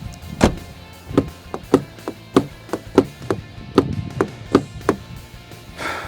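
About a dozen sharp knocks at uneven intervals, over background music.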